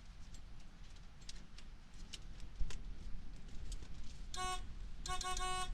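Horn of a 1989 Ford F-150 sounding twice, a short honk then a longer one, as a steady single-pitched tone, after a few light clicks.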